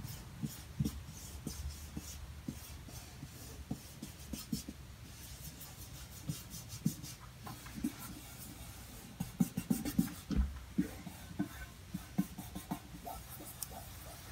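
Hands rubbing and pressing a transfer-masked vinyl sticker down onto the kiosk's smooth panel: light scratchy rubbing with scattered soft taps and crinkles, busiest about nine to eleven seconds in.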